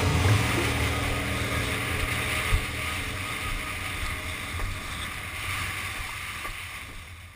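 Wind and water rushing past a board or boat on the water, a steady noisy wash that gradually fades out near the end.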